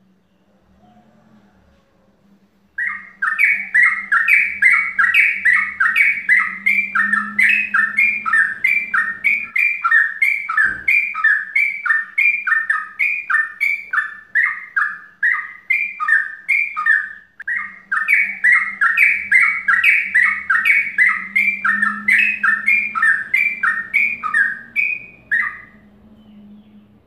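Yellow-vented bulbul (trucukan) singing a long, rapid run of repeated chattering notes, about three a second, starting about three seconds in. The run breaks briefly past the middle and stops shortly before the end. A steady low hum lies beneath it.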